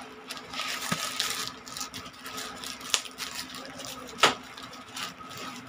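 Plastic courier pouch crinkling and crackling as it is pulled and torn open by hand, with two sharp snaps about three and four seconds in.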